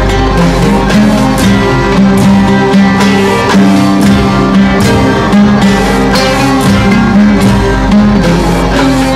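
Live-looped Arabic psychedelic music: a plucked oud and a bowed viola playing sustained melodic lines over a steady percussion loop.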